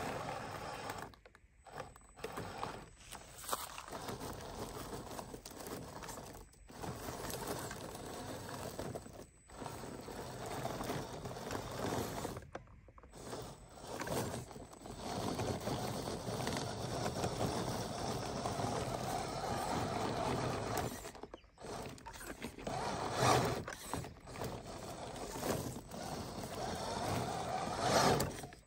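ZP 1007 RC rock crawler's electric motor and geared drivetrain whirring as its tyres scrape and crunch over loose rocks and gravel. The sound drops out briefly several times.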